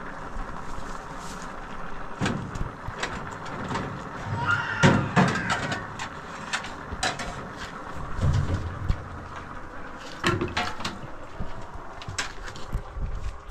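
Irregular knocks and clatters at an uneven pace, with a louder cluster about five seconds in.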